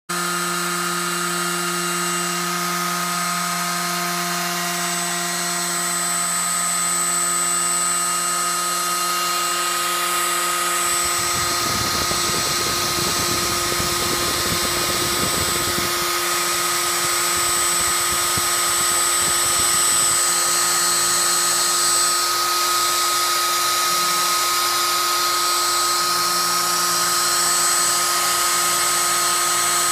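CNC router's spindle motor (a hand-held wood router) running steadily with a high whine while the machine surfaces its wooden bed to level it. A low rumble joins for a few seconds near the middle.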